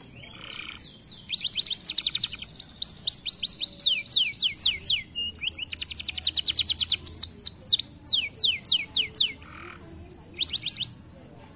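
Domestic canary singing: fast trills of high, repeated falling whistled notes, in phrases with brief breaks. Near the end there is a short pause and then one last quick trill.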